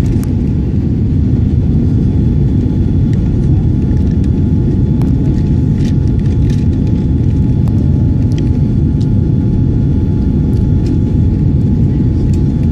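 Boeing 787 airliner's jet engines and airframe giving a steady, loud low rumble during takeoff, with a few faint ticks.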